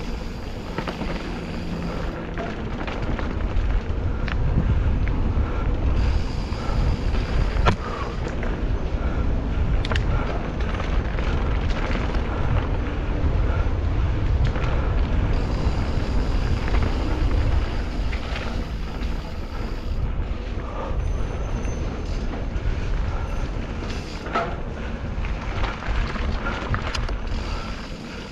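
Mountain bike riding along dirt singletrack: the tyres rolling over the trail and the bike rattling over bumps. A steady low rumble runs throughout, with scattered sharp knocks and clicks, one louder knock about eight seconds in.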